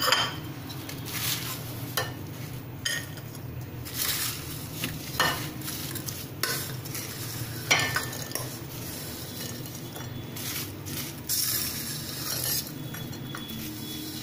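Steel spoon scraping and clinking against a stainless steel bowl while wet, syrup-soaked boondi is spooned and slid out onto a ceramic plate. Irregular sharp clinks every second or two over soft, wet scraping.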